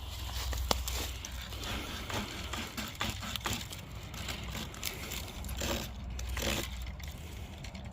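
Small saw blade of a multitool cutting into a live tree branch, with uneven rasping strokes over a low rumble.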